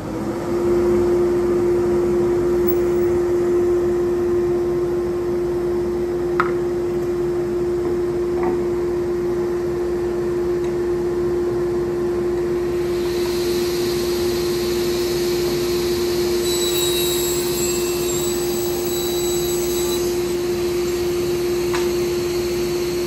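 Felder sliding table saw running with its dust extraction, a steady hum. From about thirteen seconds in, for some seven seconds, the blade rips through a board and a high cutting hiss and whine rise over the hum, then the saw runs free again.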